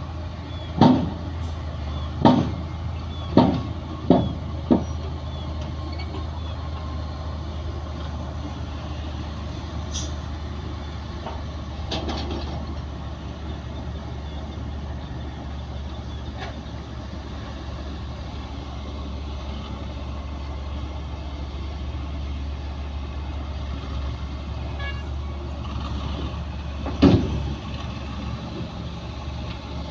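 Bulldozer's diesel engine running steadily under load, with a series of sharp bangs in the first five seconds and another loud bang near the end.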